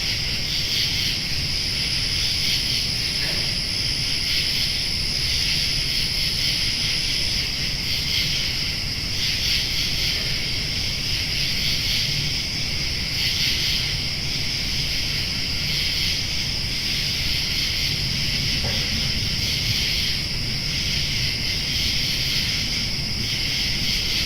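Summer night insect chorus: a dense, steady, high-pitched chirring with a slight pulse, over a low steady rumble.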